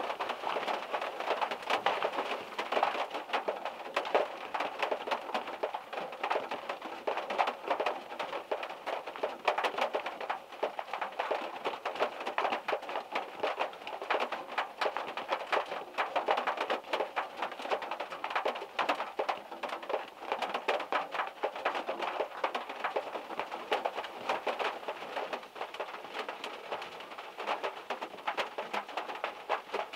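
Heavy rain falling on a small car's roof and body, heard from inside the car: a steady dense rush peppered with countless individual drop hits, including drips from the trees overhead.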